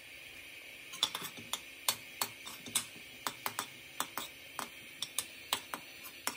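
Butter heating in a pan with cinnamon and coriander leaves: irregular sharp pops and clicks, about twenty of them from about a second in, over a faint sizzle.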